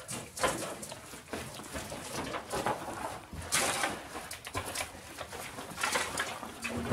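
Footsteps crunching and scuffing over burned debris, ash and broken sheeting, with irregular small clatters.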